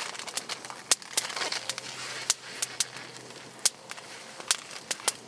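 Wood campfire crackling, with sharp irregular pops every half second or so, and a short rustle of aluminium foil being handled about a second and a half in.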